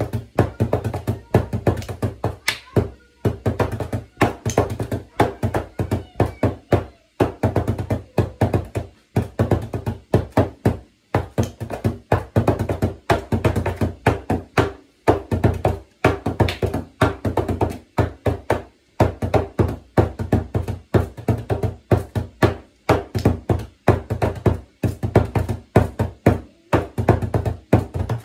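Bodhrán played with a brush tipper: a fast, continuous rhythm of strokes with a deep, booming low tone from the drum skin, broken by short pauses between phrases.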